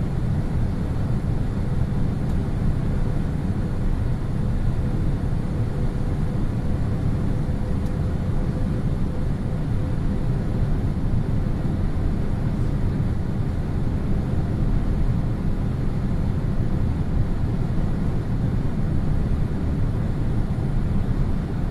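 Cabin noise inside a Boeing 787-8 airliner in flight on its approach: a steady rumble of engines and rushing air, with a faint steady hum above it.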